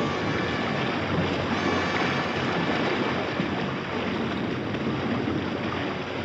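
Steady roar of rushing sea water and surf from an old film's sound-effects track.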